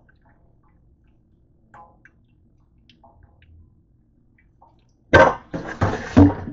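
Liquid draining from a plastic colander of cooked cabbage, faint drips and trickles into a stainless steel sink. About five seconds in, loud splashing in several surges with a few knocks as a metal pot is handled under the colander.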